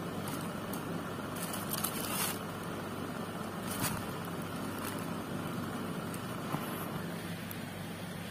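A few brief crinkling rustles as a cotton t-shirt is handled in its clear plastic wrapping: a longer one between about one and a half and two seconds in, then a short one near four seconds. Under them is a steady low background hum.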